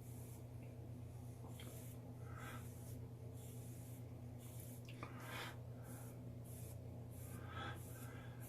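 Comb drawn through a thick, freshly blow-dried beard: soft scratchy strokes, about one a second, over a faint steady hum.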